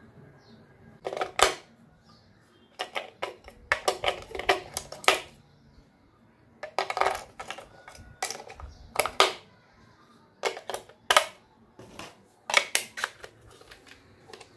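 AA batteries clinking together and clicking into the plastic battery compartment of an RC transmitter: irregular clusters of sharp clicks and clatters.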